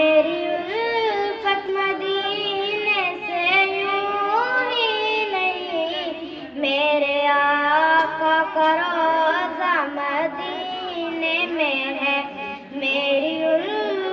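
A girl singing an Urdu na'at unaccompanied, a single young voice drawing out long notes that slide up and down.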